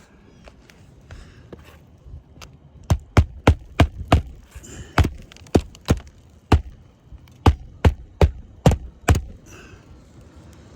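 A run of about fifteen sharp hammer strikes on roofing, coming in quick uneven groups, with the loudest blows in the middle.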